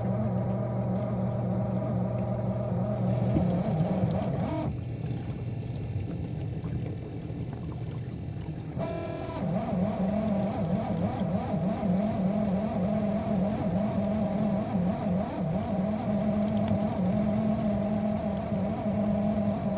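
Miele G6625 dishwasher's circulation pump motor running with a loud grinding hum; the sound drops back about four seconds in and comes on again rough at about nine seconds. The owner suspects something caught in the pump or failing motor bearings.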